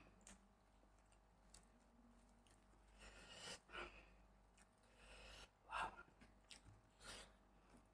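Faint chewing of a paneer bite, with a few soft mouth and breath noises around the middle and near the end.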